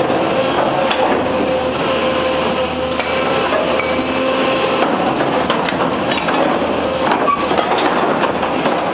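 Steel hull sections and scrap clanking and banging as they are handled, with dense, irregular metal-on-metal knocks throughout. A steady hum runs underneath and stops about halfway through.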